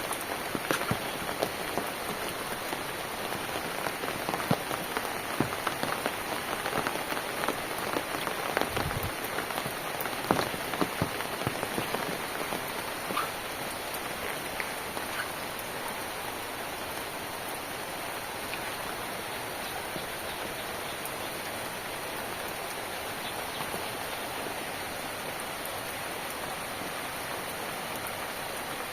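Steady rain falling, with many separate close drops tapping sharply over the first half, then settling into an even hiss.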